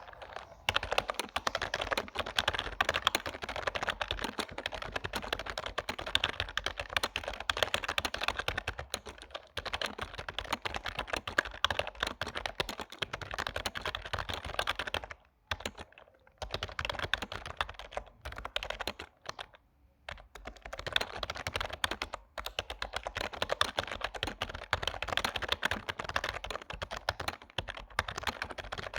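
Typing on a Logitech K120 membrane keyboard: rapid, continuous key presses, pausing briefly twice about halfway through.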